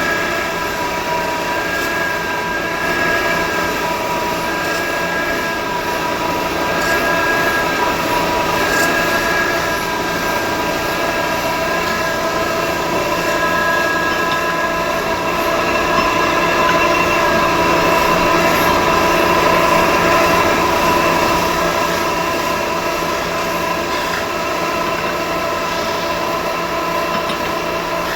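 Metal spinning lathe forming a sheet-metal utensil: a steady metallic squeal of several high tones from the tool pressing against the spinning metal, over a constant machine hum, swelling a little about two-thirds of the way through.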